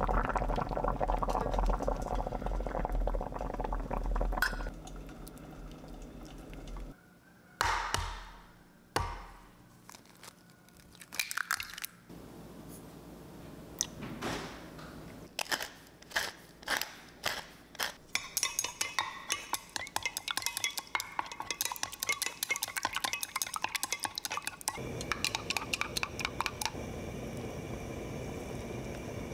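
Kitchen sounds of cooking: utensils and dishes clinking and knocking, with a run of quick, closely spaced taps in the second half.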